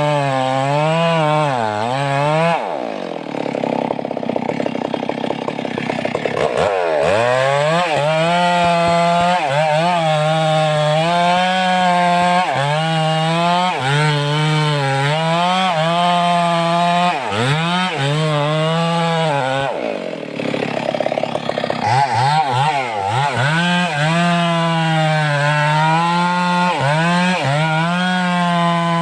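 Stihl 382 two-stroke chainsaw running at high revs and cutting through wood, its engine note wavering as the chain bites. Twice, a few seconds in and about two-thirds of the way through, the revs drop away and climb back up as the throttle is eased off and opened again.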